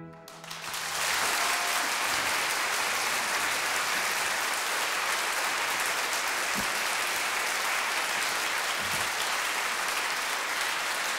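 Opera house audience applauding, building up within the first second and then holding steady.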